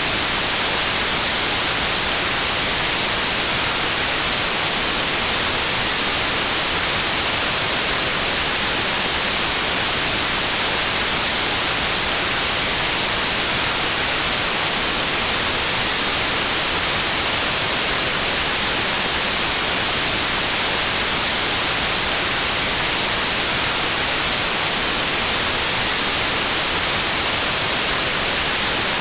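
Steady, loud white noise: an even, unchanging hiss strongest in the highs.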